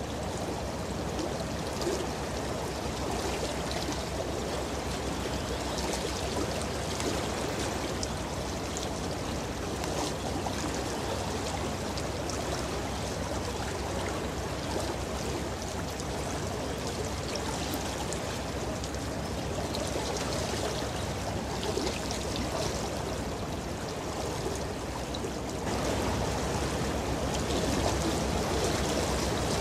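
Steady rush of water from a cargo ship's bow wave as the hull pushes through the river, growing louder about 26 seconds in as the ship draws nearer.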